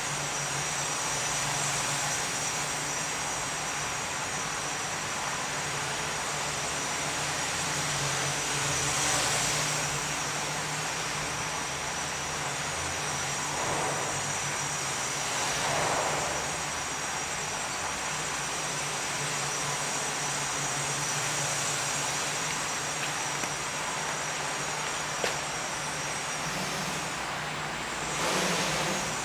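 Steady motor and propeller noise of a small aircraft, with a thin high whine over a broad hiss and a low hum, swelling briefly a few times.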